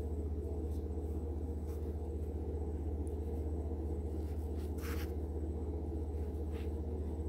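Soft scratchy rustles and light clicks of polyester fiberfill being poked and packed into a crocheted ball with the tips of scissors, the clearest about five seconds in, over a steady low background hum.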